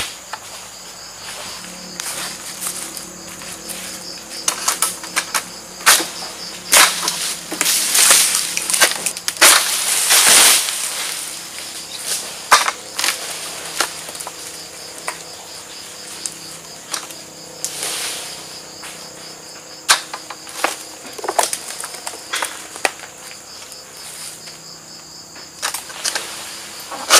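Insects shrilling steadily with a fast regular pulse, over sharp clicks, knocks and rustling bursts from a long-handled oil palm harvesting sickle (egrek) working against the palm's fronds and fruit bunch. The clicks and rustling come and go, busiest about eight to eleven seconds in.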